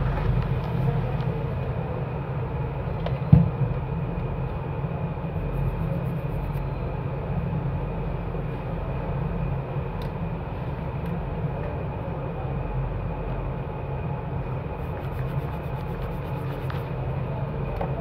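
Steady low background hum with a faint high whine running through it, and a single short knock about three seconds in.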